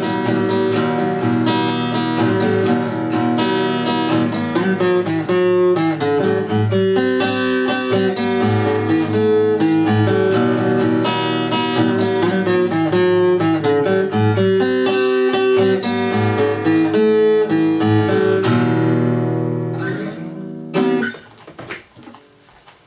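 Acoustic guitar strummed in chords, with no singing. The playing stops about two seconds before the end, leaving only a few faint knocks.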